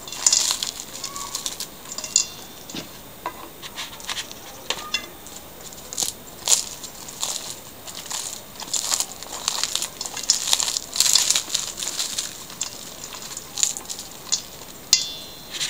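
Hands breaking and crumbling dampened matzo sheets into a bowl: a run of irregular crisp cracks and crunches.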